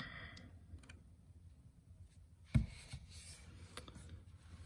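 Faint rubbing of hands on a plastic Lego brick model as it is handled, with a single knock about two and a half seconds in as the model is set down on the table.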